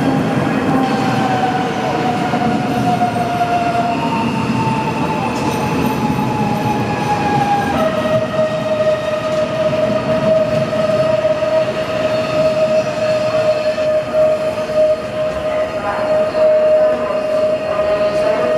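Pesa Elf electric multiple unit pulling into an underground station and slowing to a stop, its wheels rumbling. Its electric drive gives a high whine that falls in pitch in steps, then settles about eight seconds in into one steady tone that holds on.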